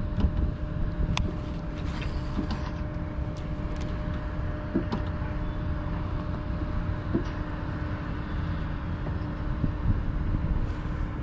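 Kayak's bow-mounted electric trolling motor running with a steady hum, cutting off near the end, over a low rumble with a few light clicks.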